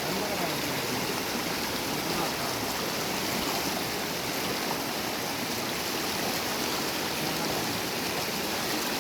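Small river's water rushing steadily over the stream bed, a continuous even hiss.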